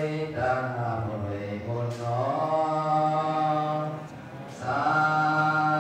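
A Buddhist monk's male voice intoning a sermon as a melodic chant into a microphone, in long held notes, with a short break about four seconds in.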